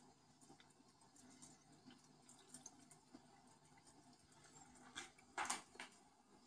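Near silence in a turtle aquarium: faint water sounds with a few small drip-like clicks. About five seconds in come two short rustling noises, the louder of them the loudest sound here.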